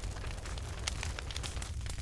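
Campfire crackling: many quick, irregular pops and snaps of burning wood over a low, steady rumble.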